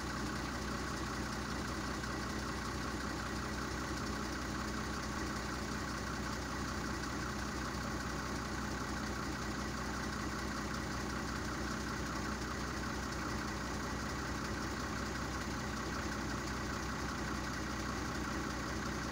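An engine running steadily at idle, a constant hum that holds one pitch.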